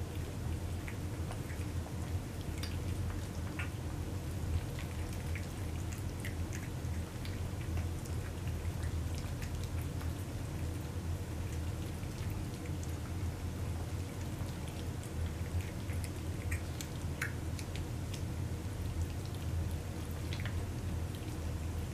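Several cats chewing and licking wet food from a shared platter: scattered small wet clicks and smacks over a steady low hum.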